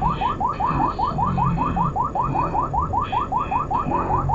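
Uniden R3 radar detector sounding its Ka-band alert: a rapid, even string of short rising chirps, about six a second. The alert signals police Ka-band radar at 34.713 GHz from a state trooper's radar gun.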